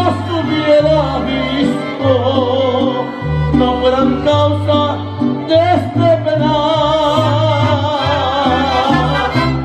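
Live mariachi band playing: violins and trumpets over strummed guitars and a bass line, with a man singing long held notes through a microphone.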